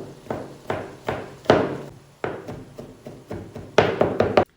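Kitchen knife chopping on a cutting board, dicing vegetables with a dozen or so sharp knocks at an uneven two to three a second. The chopping stops abruptly near the end.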